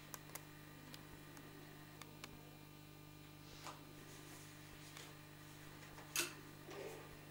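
Quiet room tone with a steady low hum, broken by a few faint, scattered clicks and ticks. The sharpest click comes about six seconds in.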